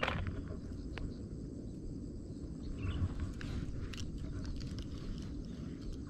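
A few small clicks of fishing tackle being handled, over a steady low rumble. The sharpest click comes right at the start, and another about a second in.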